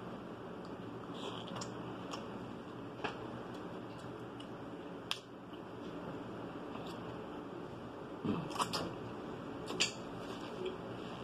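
Mussel shells clicking and scraping as meat is picked out of them by hand, a few sharp clicks about 3 and 5 seconds in and a cluster of them near the end, over a steady background hiss with soft mouth sounds from eating.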